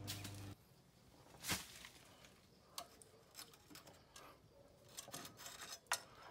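Scattered metallic clicks and clinks of a hand tool working the rear pivot pin out of a Fordson Major's front axle, with a sharper knock about a second and a half in and a cluster of clinks near the end. A steady low hum cuts off abruptly about half a second in.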